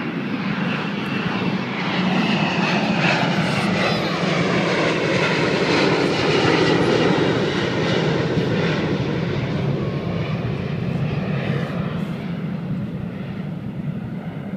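Aircraft engine passing overhead: a steady drone that swells to its loudest about six to seven seconds in, then fades as its pitch slides lower.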